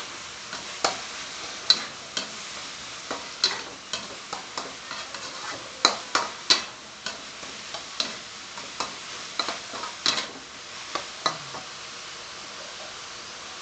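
Metal spatula scraping and clinking irregularly against a wok as minced pork is stir-fried, over a steady frying sizzle. The scraping stops about two seconds before the end, leaving only the sizzle.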